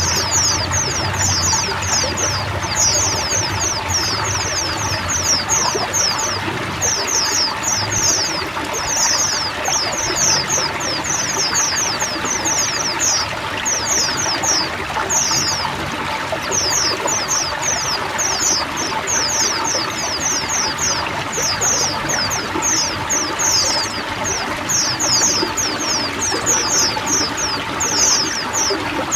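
A flock of white-eyes (pleci) twittering in chorus. Rapid clusters of short, high, downward-sweeping chirps run almost without a break over a steady trickle of running water.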